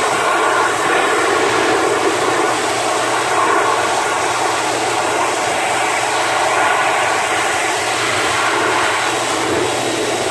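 Pet grooming blow dryer blowing steadily through its nozzle into a wet Pomeranian's thick coat: an even rush of air over a low, steady motor hum.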